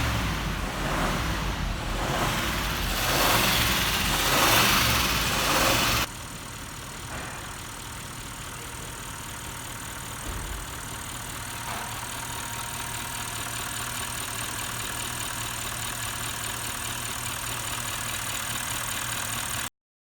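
Bentley's Audi 4.0-litre twin-turbo V8, under treatment for a carbon-related misfire, revved several times in surges. After an abrupt cut it settles into a steady idle, which stops suddenly near the end.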